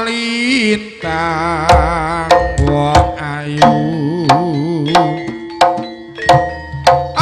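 Live East Javanese gamelan music for a troupe's soldiers' battle dance. Regular, sharp hand-drum strokes play under a sustained melody that wavers up and down in pitch.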